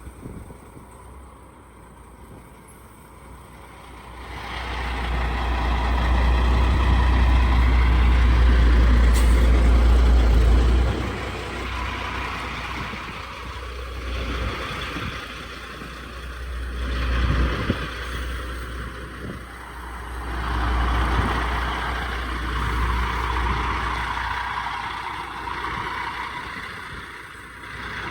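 Diesel semi truck engine running close by as the truck manoeuvres. A heavy rumble swells about four seconds in, is loudest for several seconds, eases, then swells again twice.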